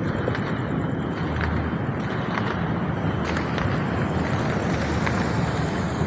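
Continuous low rumble of countless distant fireworks going off across the city, a constant drone likened to trains going around in a circle, dotted with many small, sharper pops from smaller fireworks closer by.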